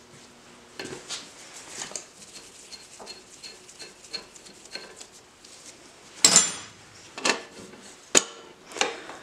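Steel adjustable wrench clinking and clanking against the brass hose fitting and body of an oxy-fuel gas regulator on a cylinder, as the fitting is worked loose. Light scattered clicks give way to a loud metallic clank about six seconds in and another sharp clank about two seconds later.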